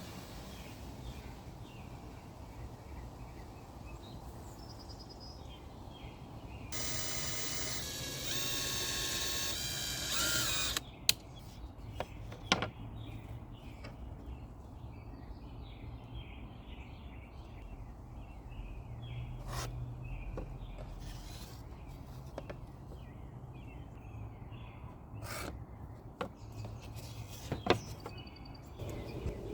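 A power tool runs for about four seconds, starting about seven seconds in, then stops. A few sharp clicks follow, and birds chirp faintly in the background.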